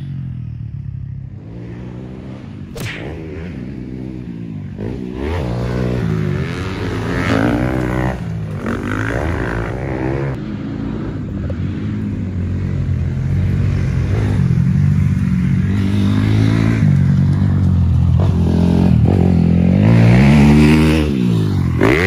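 Motocross dirt bike engine revving up and falling back over and over as it is ridden round the track, getting louder towards the end as it comes close.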